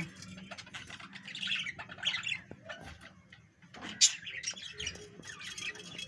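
Budgerigars chirping and chattering in scattered short calls, with one brief sharp, louder note about four seconds in.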